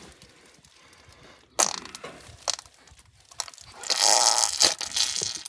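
Wet squelching and rushing sounds as a calf is pulled from a cow in a backwards delivery. There is a sudden wet burst about one and a half seconds in, then a longer, louder rush near the end as the calf comes out.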